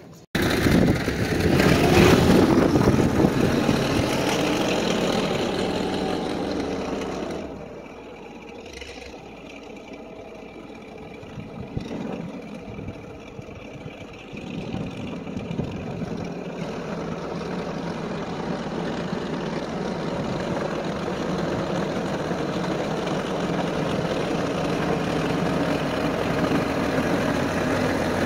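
Ford 5610s tractor's diesel engine running under load as it pulls a box blade over gravel. It is loud at first, drops off suddenly about a quarter of the way in, then grows steadily louder as the tractor approaches.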